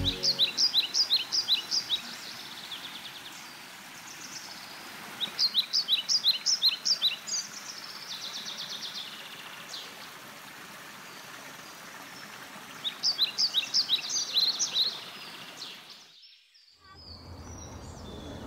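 A songbird singing the same short phrase of quick, high notes three times, a few seconds apart, over a steady background hiss of woodland ambience.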